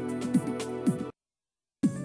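Background electronic music with a beat of falling bass thumps about twice a second. It cuts out to silence for well under a second about halfway through, then starts again.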